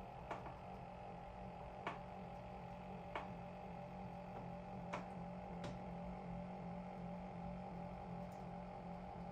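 Stepper motors of a 3D-printed six-axis robot arm running as its joints move: a steady low hum with a higher whine over it. Five sharp clicks come in the first six seconds.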